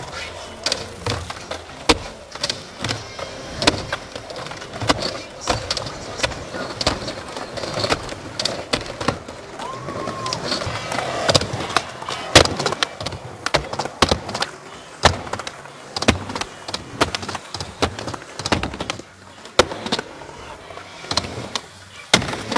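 Skateboards on a concrete skatepark: urethane wheels rolling over concrete, with frequent sharp clacks of tails popping and boards landing, and trucks grinding along ledge edges.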